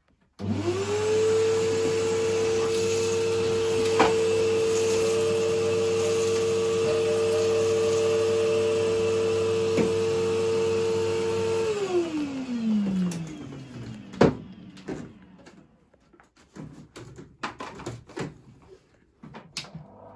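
Cylinder vacuum cleaner switched on, its motor whining up to speed and running steadily for about eleven seconds while it cleans carpet, then switched off and winding down with a falling whine. A few knocks and clicks follow, one sharp knock loudest among them.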